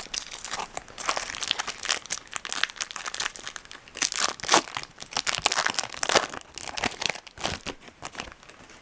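Foil wrapper of a Topps Chrome trading card pack crinkling as it is handled and torn open, a dense run of irregular crackles and rustles.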